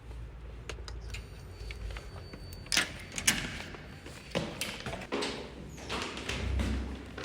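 A few separate knocks and clicks over a low steady rumble, starting about three seconds in.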